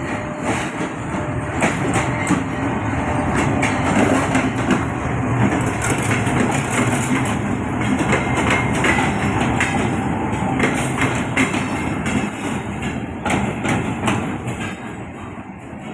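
Two coupled locomotives running past, engines running, with wheels clacking over the rail joints. It grows louder about four seconds in and fades near the end.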